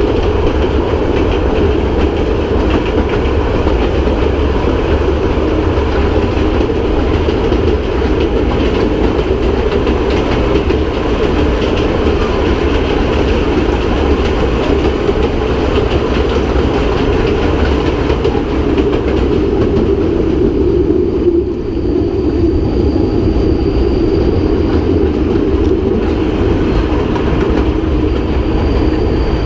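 Kurobe Gorge Railway narrow-gauge train running through a tunnel, heard loud and steady from inside an open-sided carriage: the wheels on the rails and the car's running noise, with a faint high whine in the last third.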